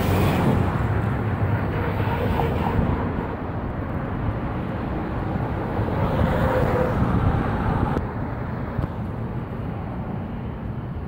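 Road traffic on a city boulevard: cars driving past, one passing close about six seconds in.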